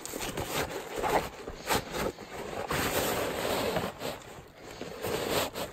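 Fabric rustling and scraping as stuff sacks and gear are pushed into a backpack and the pack body is handled: an irregular run of short rustles and crackles.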